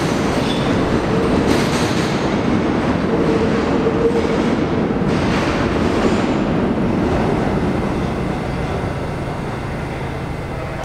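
New York City subway train running away through the tunnel, its wheels clattering over the track, with a brief wheel squeal about three to four seconds in. The rumble fades over the last few seconds as the train recedes.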